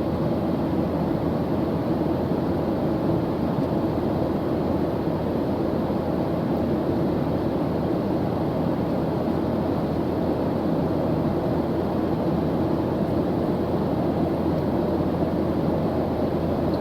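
Airplane engine noise in flight: a steady, even rumble that does not change.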